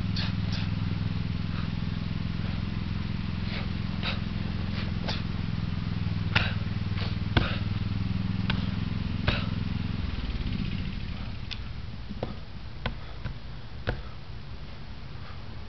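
A steady low engine drone that fades away about ten and a half seconds in, with scattered sharp clicks and knocks; the knocks in the last few seconds are hands striking a wrapped wooden training post.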